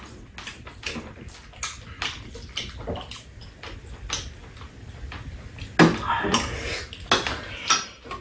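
Metal spoons clicking and scraping against ceramic bowls at a meal, with a louder burst about six seconds in.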